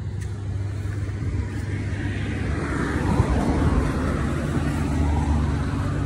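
A road vehicle passing, its noise swelling over a few seconds and easing off, over a steady low hum.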